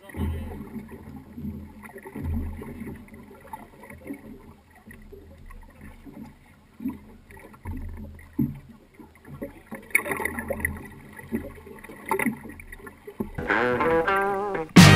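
Water and deck noise aboard a small fishing boat, with a few dull low thumps. Music comes in near the end.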